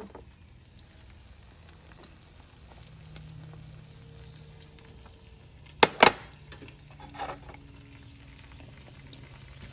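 Scrambled egg and fresh bean sprouts sizzling in a non-stick frying pan as they are stirred with a wooden spatula. Two sharp knocks come close together about six seconds in.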